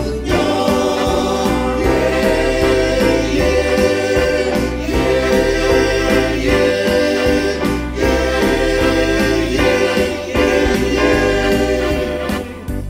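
Men's choir singing a hymn in Indonesian, many voices together in harmony with sustained notes; the level drops near the end.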